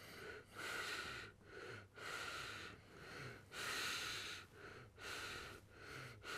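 An elderly man breathing quickly and audibly close to the microphone, with short breaths about two a second and a slight whistle on each.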